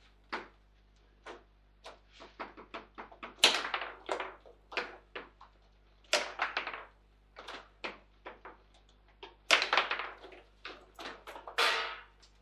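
Table football in play: a rapid, irregular run of sharp knocks as the ball is struck by the plastic players and bounces off the table walls, with the rods clacking. The loudest hits come about three and a half and nine and a half seconds in.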